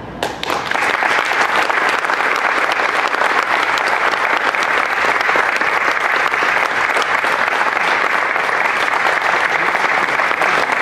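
Audience applauding, dense steady clapping that starts about half a second in and keeps on.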